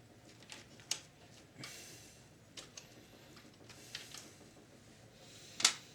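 Scattered small clicks and a brief scrape from screws and metal parts being handled while a VCR's tape mechanism is unscrewed, with a sharper click near the end.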